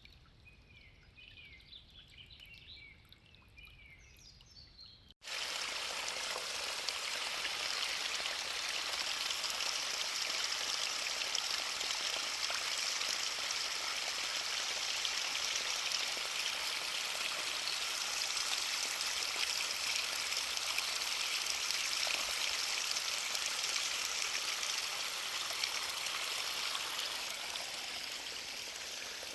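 Faint high chirping of small birds for about five seconds, then an abrupt cut to a loud, steady rush of flowing water from a spring or waterfall stream.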